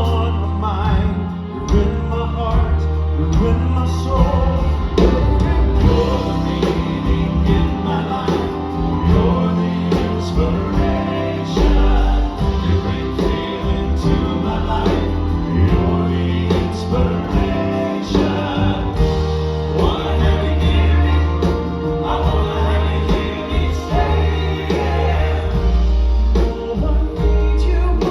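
Male vocal group singing a pop ballad in harmony over a band with bass and drums.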